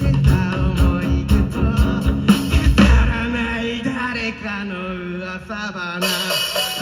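Rock band music with a singing voice, guitar and drums. A steady drum beat for the first two seconds gives way to a quieter, sung passage with the drums dropping out, and the full band comes back in with cymbals near the end.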